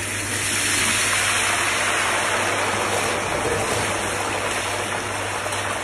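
Loud sizzling of very hot oil in a wok as a shredded salmon and breadcrumb mixture hits it and deep-fries into a fluffy mat. A steady, dense hiss that swells over the first second.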